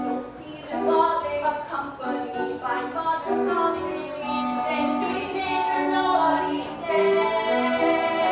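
Musical-theatre song sung by a group of young female voices with accompaniment.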